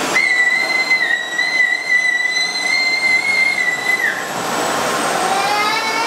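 AEG Bubble canister vacuum cleaner running, its airflow hissing under a steady high whistle. About four seconds in the whistle drops away and a rising whine follows as the motor speeds up, as happens when the suction power setting is changed.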